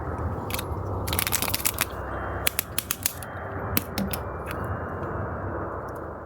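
Sharp clicks and crackles of a toy egg being handled, in a quick cluster about a second in and a second run from two and a half to four seconds in, over a steady low hiss.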